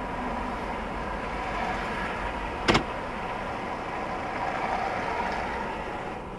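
Steady car and street traffic hum heard from inside a car behind the windshield, with one sharp click about two and a half seconds in.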